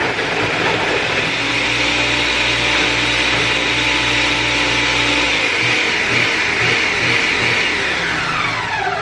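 Ninja blender running steadily as it blends frozen fruit with milk. Near the end the motor winds down, its pitch falling as it stops.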